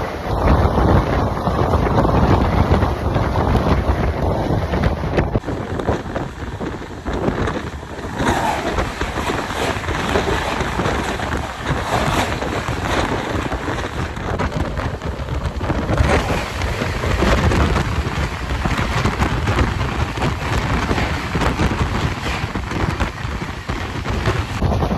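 Rushing wind and heavy rumble of fast-moving trains, with wind buffeting the microphone.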